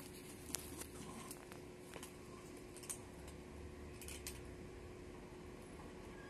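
Cat eating from a small metal food tray: faint, scattered chewing and licking clicks, a handful over a few seconds, over a steady low hum.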